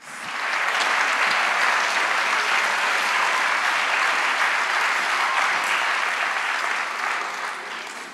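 Audience applauding steadily, the applause dying away near the end.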